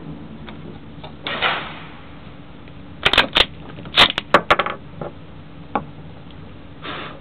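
Bolt of a Lee-Enfield No. 4 Mk I rifle being worked: a quick run of sharp metallic clicks and clacks about three to four and a half seconds in, with one more click a little later.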